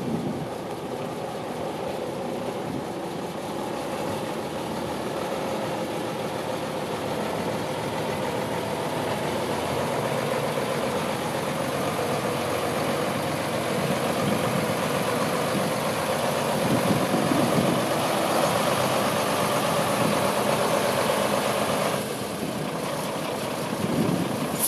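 Engine of a 1987 International 1954 single-axle truck running as the truck drives slowly across a gravel yard. The sound drops back near the end as the truck slows.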